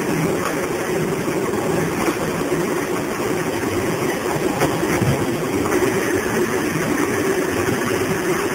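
Machinery of a grape destemming and sorting line running steadily: a continuous mechanical rumble from the conveyor and its motors, with a few light clicks.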